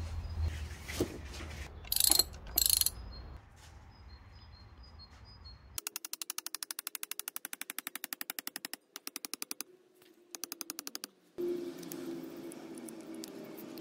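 A rapid run of mechanical ratcheting clicks, about ten a second, in three bursts with short breaks, from about six seconds in. Before it, two short, loud, sharp noises over a low hum; after it, a steady noisy background.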